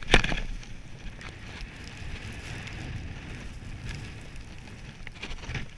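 Wind buffeting a skier's camera microphone, with a steady rumble and the hiss of skis sliding over snow. A sharp knock comes right at the start.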